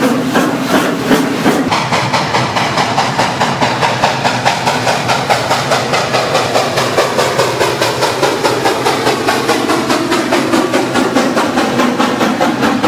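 Steam locomotive running, its exhaust chuffing in an even beat of about three to four a second over a steady hiss.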